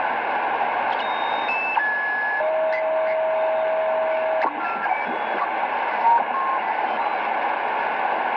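Degen DE1103 shortwave receiver tuned across the 80-metre band near 3.9 MHz: steady static hiss with short heterodyne whistles. About a second in, the whistles step down in pitch one after another, hold as a low tone for about two seconds, then step back up as the tuning passes a carrier.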